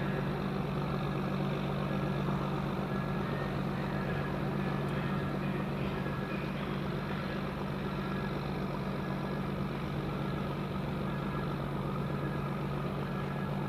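A small coastal cargo ship's diesel engine running with a steady low hum.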